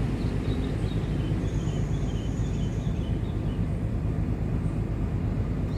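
Wind buffeting the microphone: a steady low rumble, with faint bird chirps in the first half.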